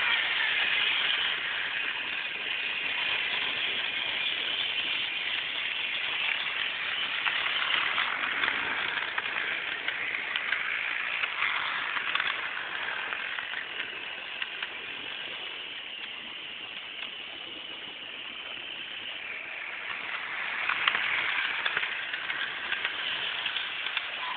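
Steady vehicle noise, a rushing hiss with no clear engine note, heard through a cellphone's microphone; it eases off in the middle and swells again about 20 seconds in.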